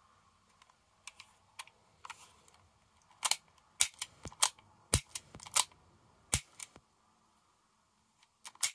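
Sharp clicks from the mechanism of an Umarex Legends S25 .177 CO2 revolver being handled and worked: a few light clicks at first, then a run of about a dozen loud clicks from about three seconds in, and a quick cluster near the end.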